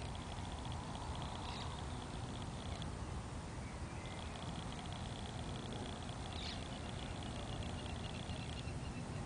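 An animal's rapid buzzing trill, kept up for several seconds at a time with short breaks between runs, over a low rumble of wind on the microphone.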